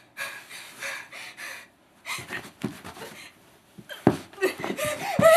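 A woman panting and gasping in fright, quick ragged breaths that grow louder and break into short whimpering cries near the end. A thump about four seconds in.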